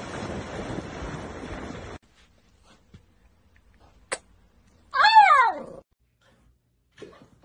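Dogs splashing through shallow water with a rushing noise that cuts off about two seconds in. Then a beagle puppy gives one short, high cry that rises and falls in pitch.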